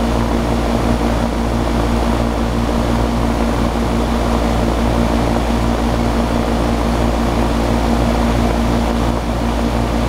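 20-year-old Kenmore R-22 central air conditioner's outdoor condensing unit running: the condenser fan blows a steady rush of air over a constant low hum.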